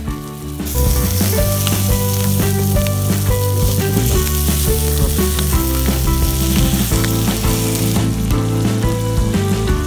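Food sizzling on a hot thick iron griddle (teppan), the hiss swelling about a second in and easing near the end, under background music.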